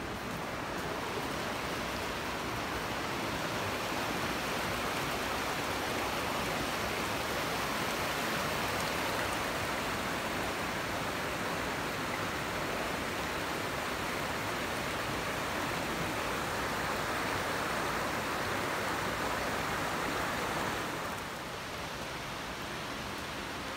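Rushing water of a rocky river running over small rapids: a steady hiss that grows a little quieter near the end.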